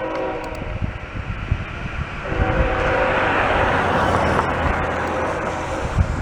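A Canadian Pacific ES44AC locomotive's air horn sounds a chord of several notes in two blasts: a short one at the start and a longer one from about two seconds in. Underneath is the low rumble of the passing train, which swells in the middle.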